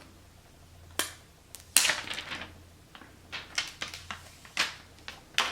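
Handling an iPhone and its packaging: a sharp click about a second in, then a short rustle of packaging and a scatter of light clicks and taps.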